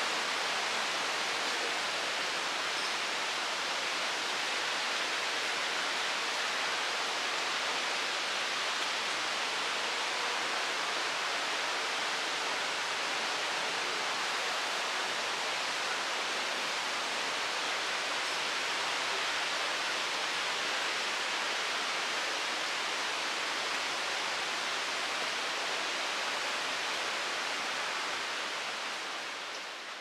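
Steady rush of water: an even hiss with no separate splashes, dropping slightly in level over the last two seconds.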